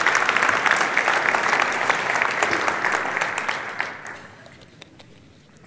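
Church congregation applauding, dying away about three to four seconds in, leaving a few scattered claps.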